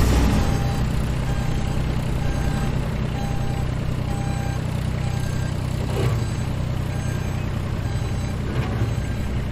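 Shuttle bus engine running steadily as the bus creeps forward through loose sand, a low drone throughout. A short electronic beep repeats about once a second over it.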